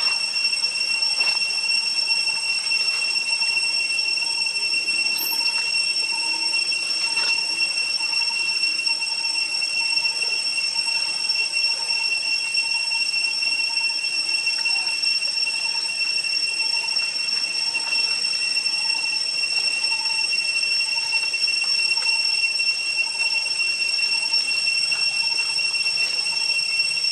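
Insects droning in forest, with a steady high-pitched tone that holds without a break. Under it, a softer, lower note repeats about once a second.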